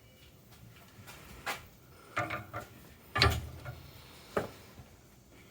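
Scattered clicks and knocks of metal hydrant parts being handled as the linkage is slid back and the nuts are put on, the loudest knock a little after three seconds in.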